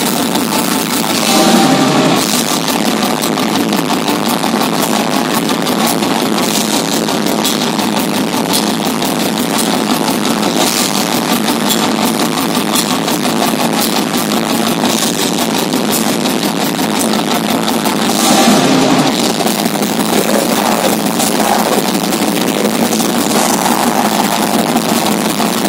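Metal band playing live: a dense, unbroken wall of distorted electric guitars and drums, with little bass. It swells briefly louder about 2 seconds in and again near 18 seconds.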